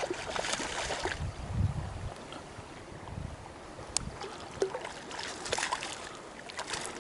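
River water splashing and sloshing at close range in irregular bursts as a hooked trout is being landed, with a sharp knock about four seconds in.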